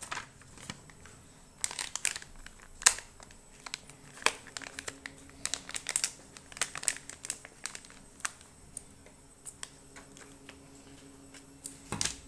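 Paper and plastic packaging being handled: irregular crinkling and rustling, busiest in the first half, sparser after that, with another flurry near the end. The source is the folded menu-map leaflet and the packing bag of a NanoVNA kit.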